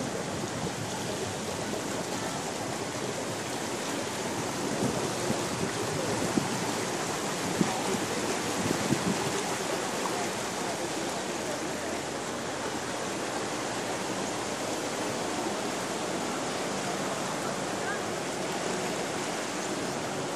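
Steady rushing and swishing of floodwater churned up as a vehicle wades along a flooded road, with a few louder splashes in the first half.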